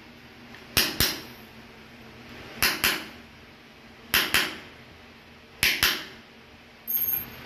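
Light hammer taps on a nail held against ceramic floor tile, in pairs about every second and a half, punching a small starting dent so the drill bit won't slip on the glazed tile. One more short, ringing tap comes near the end.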